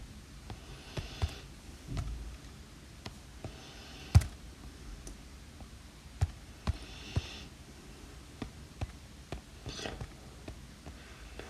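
Stylus tip tapping and sliding on an iPad Pro's glass screen while drawing: scattered sharp taps, the loudest about four seconds in, and several short scratchy strokes.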